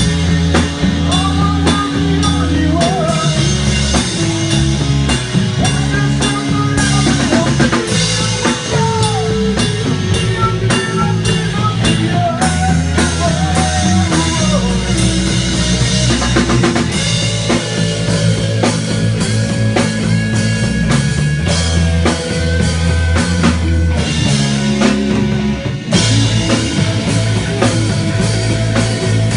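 Hard rock band playing live, with a steady drum-kit beat under bass and electric guitar.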